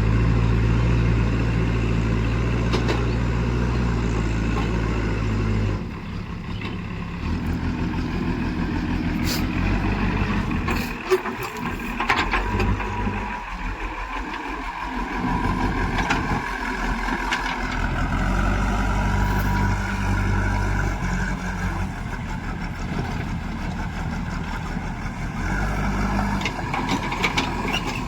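A heavy diesel engine running, loud at first and dropping off suddenly about six seconds in, then carrying on unevenly with a few sharp knocks a few seconds later.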